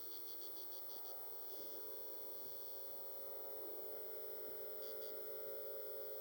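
Danionella translucida fish sounds picked up underwater in an aquarium: a steady buzzing hum that grows louder, with a quick run of soft high ticks in the first second and a short pair of ticks about five seconds in.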